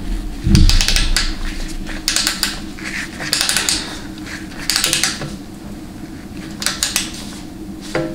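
Ratchet of a digital torque wrench clicking in short runs, about six times, as the socket is swung back and forth on the steel oil-pan bolts of a 700R4 automatic transmission. The bolts are being re-torqued to 98 because the pan gasket compresses after the first pass.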